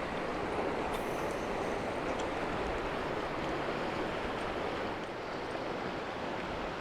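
Steady rushing of river water, an even hiss without breaks.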